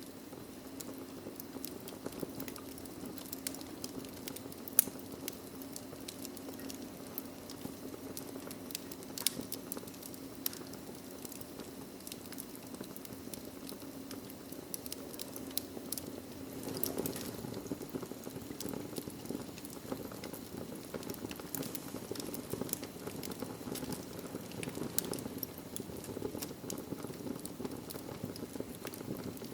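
Wood fire in a fireplace crackling, with frequent sharp pops over a steady low rush of flame. One pop about five seconds in is louder than the rest.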